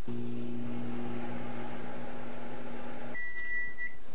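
Countertop microwave oven running with a steady low hum, then cutting off about three seconds in and giving one long beep as the cooking cycle ends.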